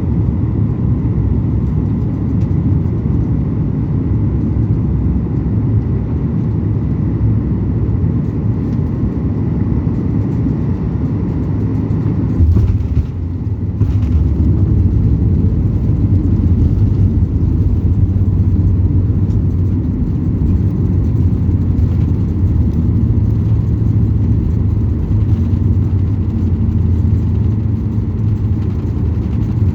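Cabin noise of a Boeing 737 MAX 8-200 with its CFM LEAP-1B engines during landing: a steady low rumble with a faint whine. Near the middle a sudden jolt, which is the touchdown, is followed by a louder, deeper rumble of the rollout.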